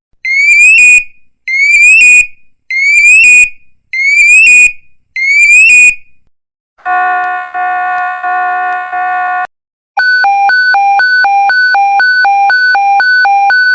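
A sequence of electronic alarm tones. First come five rising whoop tones, each under a second long and about a second apart. A harsh steady buzzer tone follows for a couple of seconds. About ten seconds in, a fast pulsing beep alarm starts, sounding about three times a second.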